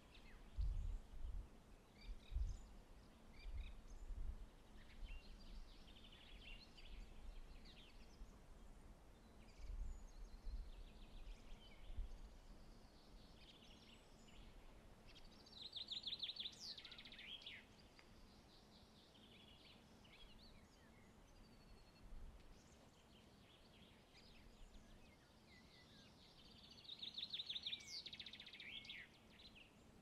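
Small songbirds singing faintly: scattered chirps and, twice, a fast trill of repeated notes that ends in a falling flourish. Irregular low rumbles come and go in the first half.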